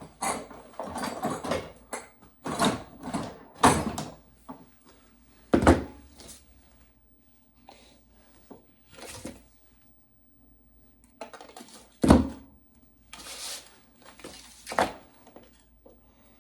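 Hands handling a small wooden picture frame and its hardware on a work surface: irregular rustling and scraping, with two sharp knocks about six and twelve seconds in.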